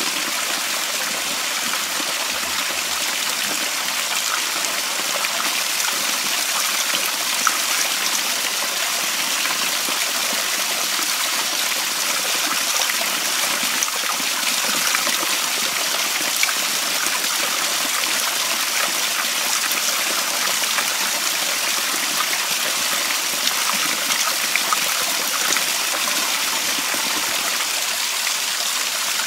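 A small waterfall running over rocks: a steady, even rush and splash of water.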